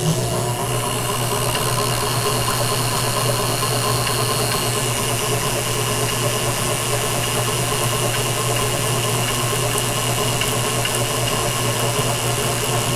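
Electric motor of an SW Speedwinder AL-130 line winder running steadily, spinning a big-game fishing reel to wind line onto it from a bulk spool. It makes an even, steady hum.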